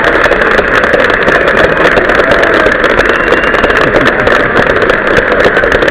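Concert audience applauding and cheering, a dense, steady clatter of clapping so loud that the recording is overloaded and distorted.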